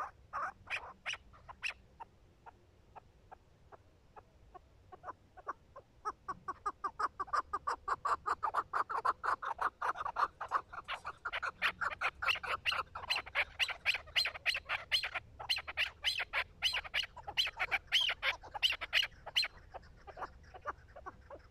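Chukar partridge calling: a long series of short clucking notes, scattered at first, then from about six seconds in a fast, dense run of several notes a second that grows louder for a while before easing off near the end.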